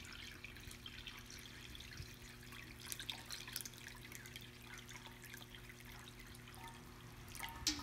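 Water trickles and drips faintly as it is poured into the bowl of a round Shigaraki-ware ceramic suikinkutsu (marutōkin). Near the end, drops start sounding inside the pot as short, clear ringing tones.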